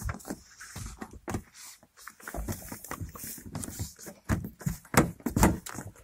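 Irregular knocks, taps and clicks of a car door lock unit and its fittings being handled and pushed back into place inside the door shell, with the sharpest knocks in a cluster about five seconds in.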